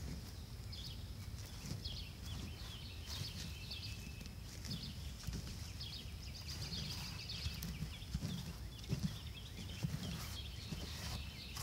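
A gloved hand scraping and scooping loose potting mix inside a plastic container tipped on its side, feeling through the soil for potatoes at harvest: irregular soft rustles and dull thuds. Short high chirps sound faintly throughout.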